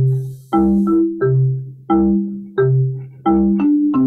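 Xylophone-type mallet instruments playing the instrumental lead-in to a children's song: about nine struck notes in a lilting rhythm, each ringing briefly over a low bass tone, the last one held and fading.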